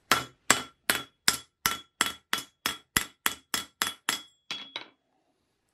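A hand hammer striking a bent iron trigger-guard blank on an anvil, about fifteen quick blows at roughly three a second, each with a short metallic ring, stopping about five seconds in. It is hammering the crooked bend back into line.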